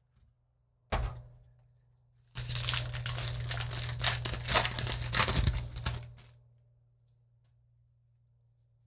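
Magic: The Gathering booster pack's foil wrapper crinkling and being torn open: a short crinkle about a second in, then about three and a half seconds of continuous crinkling and tearing that stops suddenly.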